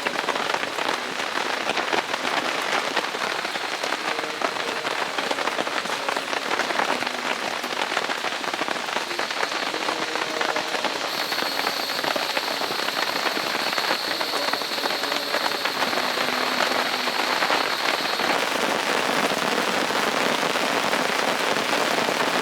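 Steady heavy rain falling, a dense, even patter of drops.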